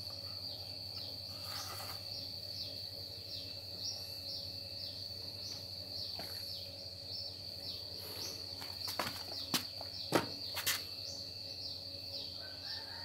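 Steady high insect trill with short falling chirps repeating about twice a second. A few sharp knocks come about two-thirds of the way through.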